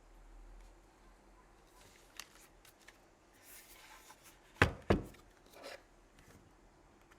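Faint rustling and light clicks, then two sharp clacks about a third of a second apart near the middle and a softer one shortly after: a mechanical keyboard being handled on a desk.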